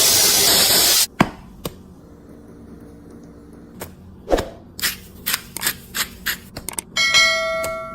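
Kitchen food-preparation sounds: a loud, steady hiss cuts off about a second in. Scattered sharp taps and clicks of utensils follow, and a ringing tone fades away near the end.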